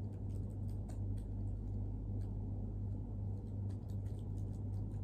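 Laptop in use: faint, scattered clicks from its keys or trackpad over a steady low hum.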